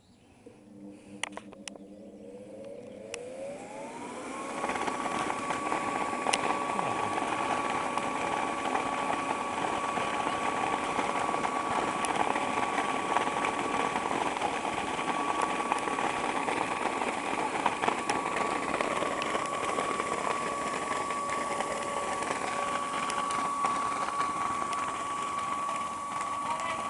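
Electric inflation blower for an inflatable bouncy castle starting up. After a few clicks its whine rises in pitch over about three seconds, then it runs steadily with a rushing of air while the bouncy castle fills.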